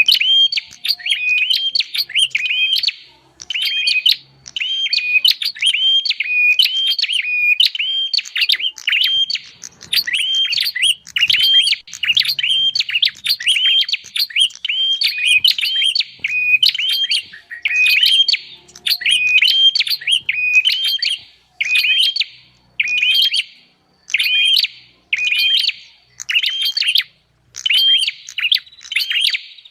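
Recorded prenjak (prinia) calls played as a bird lure: loud, rapid series of sharp chirps repeated in phrases, separated by brief pauses.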